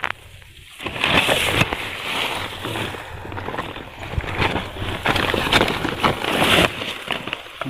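Woven plastic sack rustling and crinkling as it is handled and held open, a rough scratchy crackle with many small irregular crunches that starts about a second in and eases off near the end.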